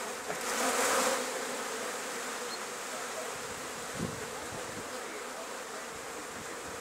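Flies buzzing steadily around drying boilies, with a brief rush of noise about a second in.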